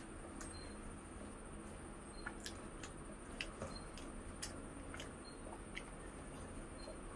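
Mouth sounds of a person eating: irregular wet smacks and clicks of chewing, several a second, over a steady low hum.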